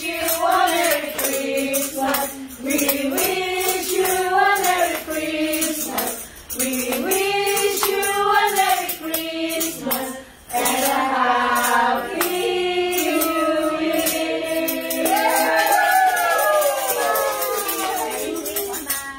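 A small group of women carolers singing a Christmas carol together, with a tambourine jingling along to the beat.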